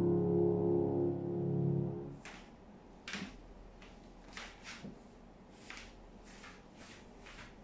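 Grand piano's final D-flat major chord ringing, then damped off abruptly about two seconds in. A series of soft scuffs and a light knock follow as the pianist gets up from the bench and steps away.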